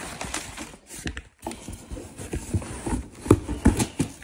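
Crumpled brown kraft packing paper rustling and crinkling in a cardboard shipping box as hands dig through it, with irregular crackles and a couple of sharper ones about three and a half seconds in.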